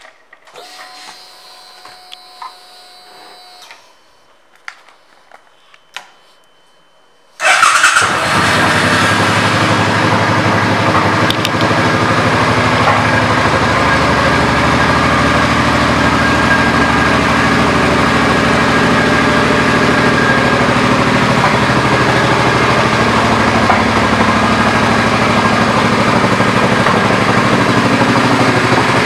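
A 2007 Suzuki Boulevard M50's V-twin engine starts about seven seconds in, catching abruptly, and then runs at a steady idle. Before it starts there are only a few faint clicks.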